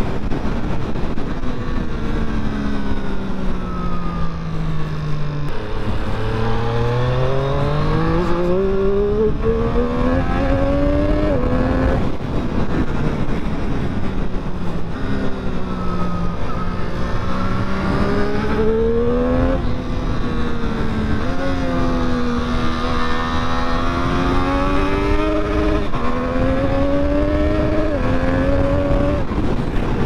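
2020 Triumph Street Triple 765 RS's 765 cc inline-three engine under way, over a steady rush of wind. The revs fall for the first few seconds, then rise in repeated pulls, each ended by a sudden drop in pitch at a gear change.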